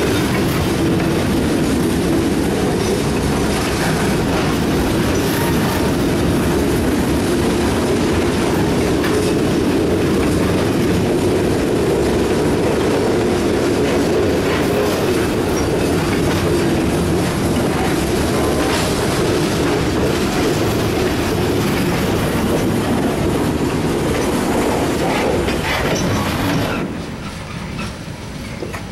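Freight train hopper cars rolling past at close range: a steady rumble of steel wheels on rail, with repeated clacks over the rail joints. About 27 seconds in, the sound drops off suddenly as the last car goes by and the train moves away.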